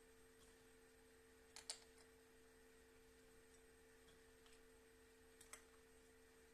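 Near silence: room tone with a faint steady hum and a few soft clicks, two small double clicks about four seconds apart.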